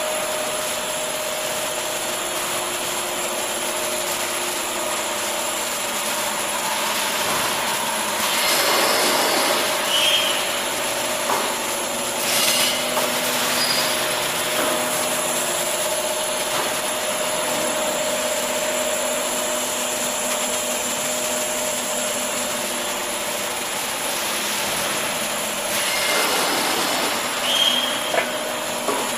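Paper egg tray production line running: a steady mechanical whir with a constant whine, swelling louder a few times.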